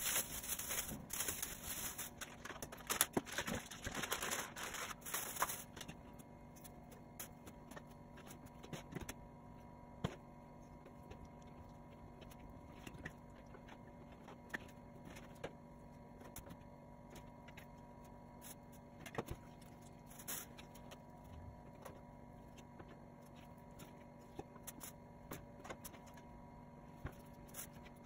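A plastic bag holding raw chicken crinkling as it is handled for the first five seconds or so, then scattered light taps and clicks of hands working the meat on a plastic cutting board, over a faint steady hum.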